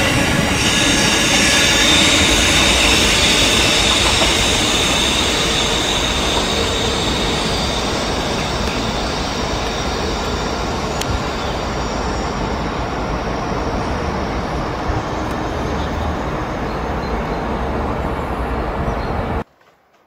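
Recording of a real Dutch NS Koploper electric passenger train running, a dense rumble of wheels and running gear with a high steady whine. It fades slowly, then cuts off suddenly near the end.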